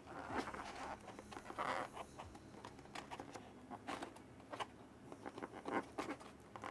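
Trading cards and packs being handled close to the microphone: scattered soft clicks and short rustles, with a longer rustle near the start and again about two seconds in.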